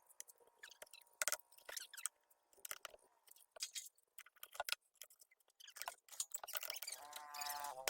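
Irregular sharp clicks and clinks of tools and metal parts being handled during engine repair work, with a short pitched sound near the end.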